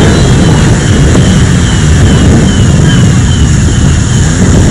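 Many motorcycle engines running and revving together in a loud, continuous din, with a faint high falling chirp repeating about twice a second.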